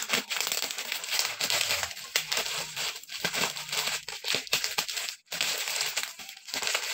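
Plastic bubble wrap crinkling and crackling as a parcel is unwrapped and cut open with scissors.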